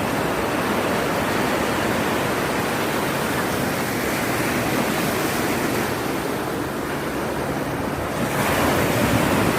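Steady rushing noise of sea surf mixed with wind on the microphone, swelling a little louder a bit past eight seconds in.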